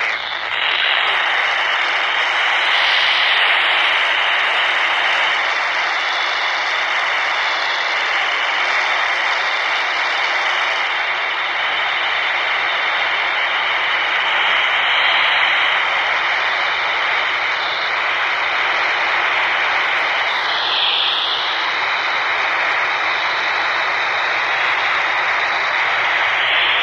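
Baofeng UV-5R handheld radio hissing with steady FM static from its speaker, squelch open on 145.800 MHz with no voice coming through from the ISS downlink. Faint wavering whistles ride on the hiss.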